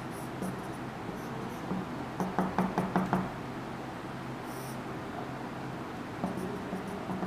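Marker pen on a whiteboard, drawing short strokes. A quick run of about six taps comes a little past two seconds in, with a few faint squeaks of the tip around it, over a steady low hum.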